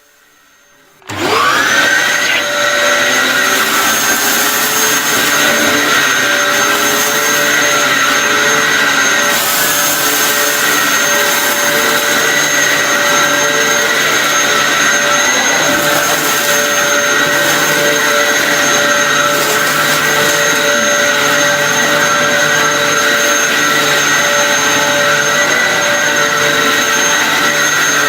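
Vacuum cleaner switched on about a second in, its motor rising quickly in pitch up to speed, then running steadily.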